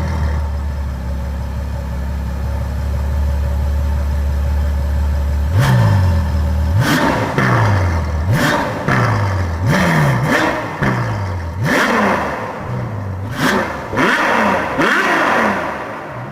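An engine running at a steady low idle, then revved in a string of quick blips from about five seconds in, each rev falling away before the next.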